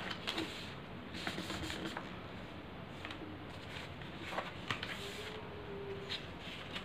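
A sheet of paper rustling and crackling as hands fold and crease it into a paper boat, with short scattered crinkles and taps.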